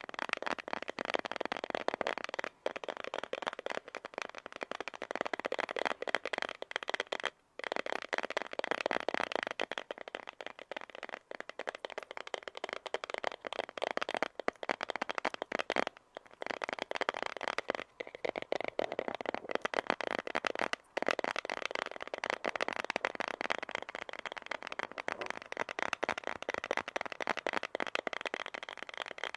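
Stones being rubbed and ground against each other close to the microphone: a dense, continuous run of small gritty clicks and scrapes, broken by a few short pauses.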